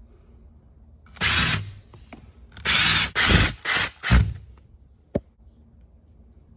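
Tool noise from fastening a new wall plug socket: four short, loud bursts of mechanical whirring, then a single sharp click.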